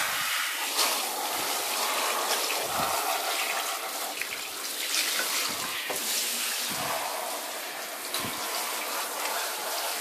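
Handheld shower head running, its spray hitting a wet cat's fur and the bathtub floor in a steady hiss of water.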